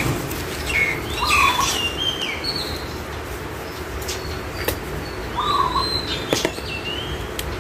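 Birds calling with short chirps repeated every few seconds, over the scrape and rustle of a small trowel scooping potting soil into a pot, with a few sharp clicks.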